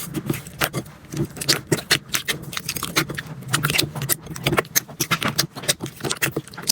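Slime being squeezed and poked by hand, with a dense run of irregular small clicks and pops, several a second.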